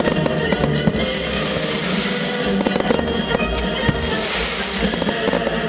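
Fireworks display: aerial shells bursting with sharp pops and swelling waves of crackle, with music playing underneath.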